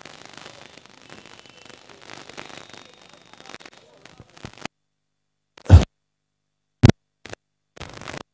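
Two short, loud thumps over the public-address sound, about a second apart, the first the louder, like a handheld microphone being bumped. Before them is a few seconds of faint murmur, and the sound cuts in and out between them.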